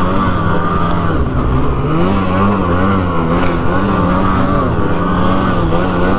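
Polaris Pro RMK two-stroke snowmobile engine running hard on the throttle while riding, its pitch rising and falling repeatedly.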